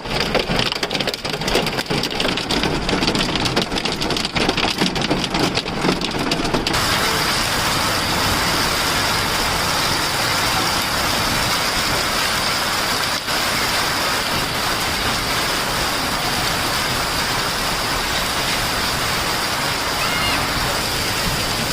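Heavy rain with hail: for the first seven seconds or so, a dense clatter of many small hits over the rain; then an abrupt change to a steady, even downpour.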